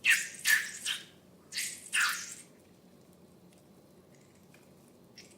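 Slime being squished and pressed by hand: about five wet, hissy squishes in the first two and a half seconds, then a few faint sticky clicks.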